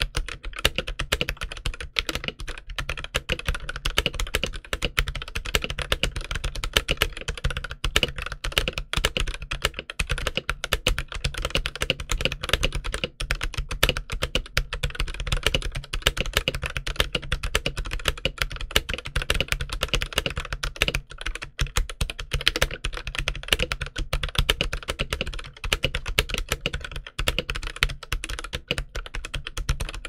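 Continuous rapid typing on an Akko 5087B Plus mechanical keyboard with Akko CS Jelly Black linear switches and DS PBT keycaps in Cherry profile: a dense, steady stream of keystroke clacks.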